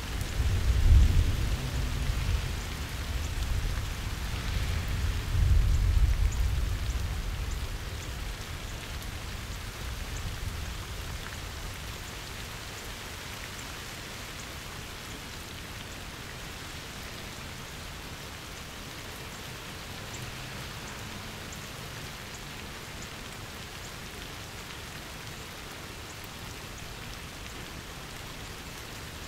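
Steady rain falling, with a low rumble of thunder through the first eight seconds or so, swelling about a second in and again around five to six seconds, then dying away to the rain alone.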